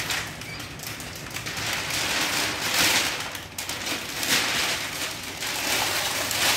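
Clear protective plastic film being peeled off a flat TV screen and bunched up, a dense crinkling and crackling that swells a few times.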